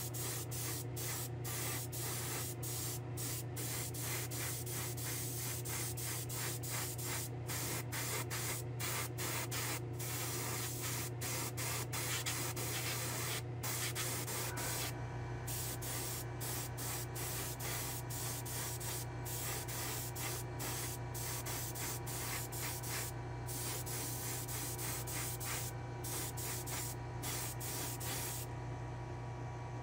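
Hand-held paint sprayer hissing as it sprays clear coat, in short bursts with many brief breaks, over a steady low hum.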